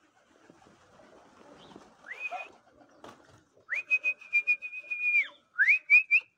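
A person's whistle calling pigeons down to the loft. A short rising whistle comes about two seconds in, then a long held whistle that rises at the start and drops off at the end, then two quick rising whistles near the end, with a few sharp clicks among them.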